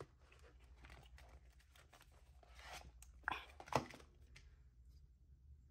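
Faint rustling of paper cash envelopes and bills being handled, with two sharper crinkling handling sounds about half a second apart just past the middle.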